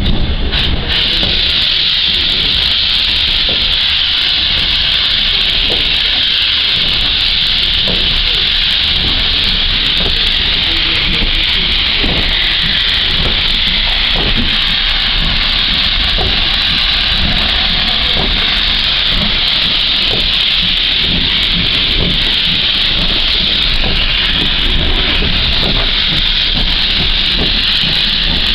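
GWR Hall-class 4-6-0 steam locomotive No. 4936 Kinlet Hall letting off a lot of steam: a loud, steady hiss with a low rumble from the moving train underneath.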